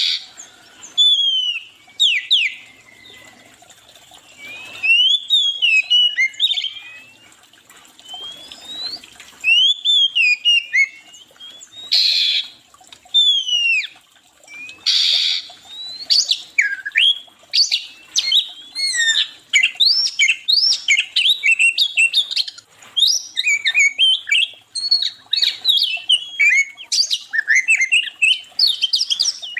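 Several songbirds chirping and whistling, quick sweeping notes; sparse at first, then a dense near-continuous chorus from about halfway through. A few short rasping bursts stand out among the notes.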